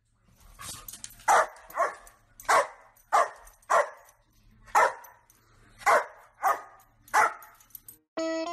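Dog barking: about nine sharp barks in quick succession.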